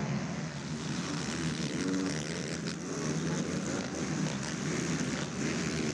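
Racing ATV (quad) engines revving up and down as the quads ride the dirt supercross track, the pitch rising and falling with the throttle.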